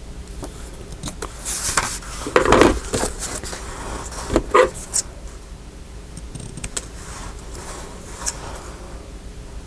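Rustling and light clattering of paper ephemera and small craft pieces being handled and set down on a work table, in a few short bursts, loudest in the first half.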